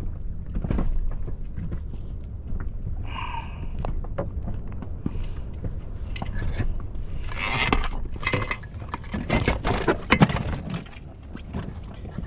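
Irregular clinks, scrapes and rustles of hands handling a freshly caught grouper and fishing tackle on the floor of an inflatable boat, louder in a few bursts past the middle, over a steady low rumble.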